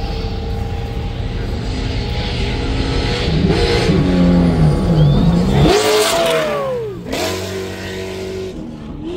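Trophy truck engine approaching at speed, its note rising and falling through revs and growing louder, then passing close with a drop in pitch about six seconds in and fading off.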